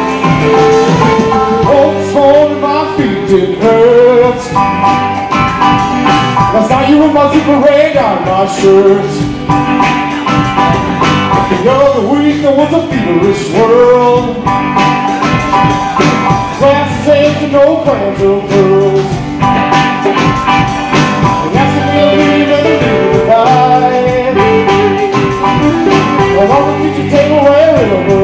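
Live rock band playing loud and steady: electric guitars, bass guitar, keyboard and drum kit together.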